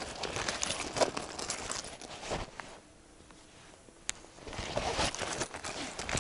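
Irregular rustling and crinkling close to the microphone as an angler handles his fishing tackle, quieting briefly in the middle, with a single sharp click about four seconds in.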